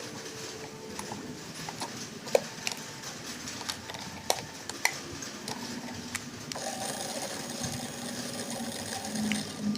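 Scattered plastic clicks and taps, then about two-thirds of the way in a toy RC car's small electric drive motor starts up and runs with a steady whine.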